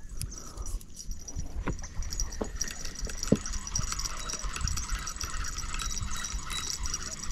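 Spinning reel being cranked to wind in line, a steady whirring from its gears that sets in about two seconds in, with a few soft knocks before it.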